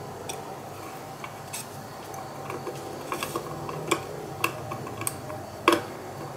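Small screwdriver turning the spring-loaded screws back into a Powercolor Red Devil RX580 graphics card's metal backplate: a string of light, irregular clicks and ticks of metal on metal, the loudest near the end.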